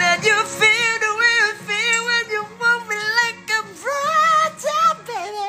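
A man singing high, wordless vocal runs with a wavering vibrato over a soft backing track. Near the end the voice slides up into a few short, broken notes.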